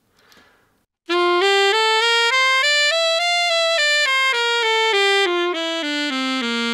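Alto saxophone playing a D major scale up and back down, starting about a second in, note by note in even steps. It is played with correct voicing (tongue position, open throat, relaxed lip pressure), giving a full, centred tone that stays in tune rather than going sharp up high and flat down low.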